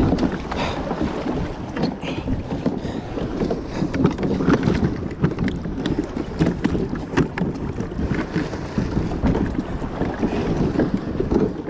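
Wind buffeting the microphone and waves slapping against a kayak hull stuck on rocks, with many short knocks and clicks scattered through it.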